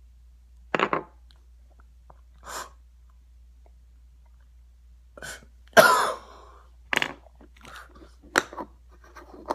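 A man coughing in a series of short, harsh coughs after drawing in smoke, the loudest about six seconds in.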